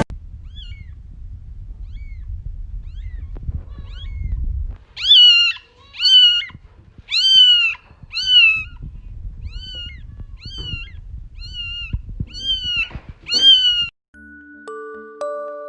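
Kitten meowing repeatedly: a few faint calls, then about ten loud, high meows roughly one a second, each rising and then falling in pitch. Near the end, after a cut, bell-like background music takes over.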